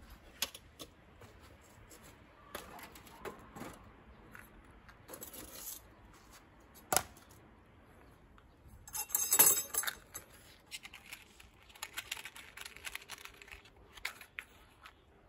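Metal charcoal chimney starter and hard charcoal being handled on a grill: scattered clinks and knocks, with a sharp knock about seven seconds in and a burst of clinking about two seconds later, then small clicks and rattles near the end.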